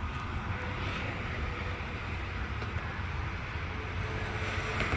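Steady low outdoor background rumble of traffic. There is no lock beep: the 2020+ Land Rover Defender is being locked by key fob with its audible lock warning switched off.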